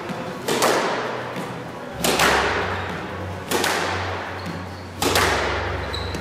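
Squash ball volleyed back and forth in a steady rhythm: four sharp racket-and-wall hits evenly spaced about a second and a half apart, echoing in the court.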